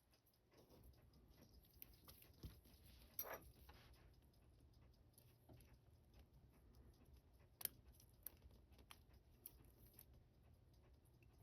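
Near silence with scattered faint clicks and taps of small metal tools and watch parts being handled on a workbench, the most distinct about 3 seconds in and again near 7.5 seconds.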